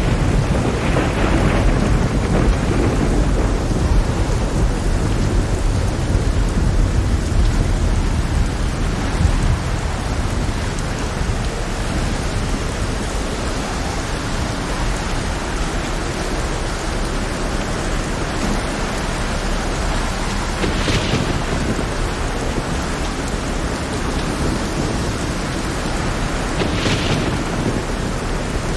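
Heavy rain with low rolling thunder, the rumble strongest over the first ten seconds or so. Two brief surges of louder hiss come later, about two-thirds of the way in and near the end.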